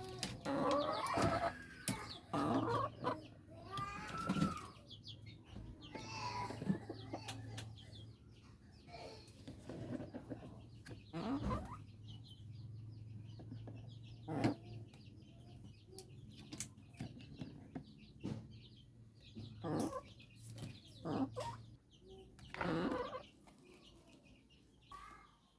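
Chickens clucking and calling in scattered bursts over a low steady hum, which stops near the end.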